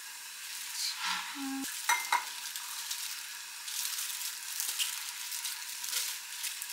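Food sizzling steadily in a frying pan, with a couple of light clinks about two seconds in and a few small taps later on.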